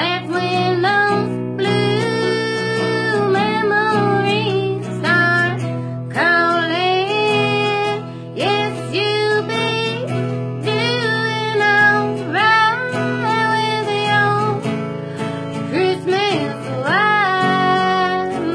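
A singer with acoustic guitar accompaniment, singing a melody in phrases over steady guitar chords.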